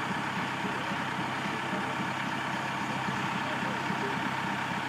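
A small diesel switcher locomotive's engine idling steadily with an even low hum.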